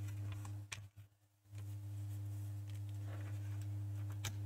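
Steady low electrical hum with a few light clicks of hands handling the opened PlayStation 1, and one sharper click near the end as the mains lead is pushed into the console's power socket. The sound cuts out for about half a second about a second in.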